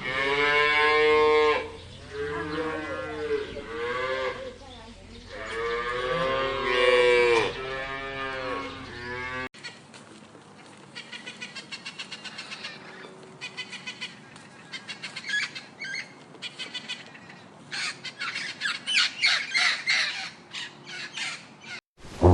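Livestock calling: about five long, wavering calls in the first half. After a cut, a different animal gives rapid pulsing calls that grow quicker and louder near the end.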